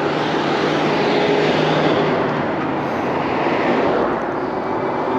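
Steady rush of wind over a handlebar-mounted camera's microphone as an electric bike rides along a street, with tyre and road noise underneath.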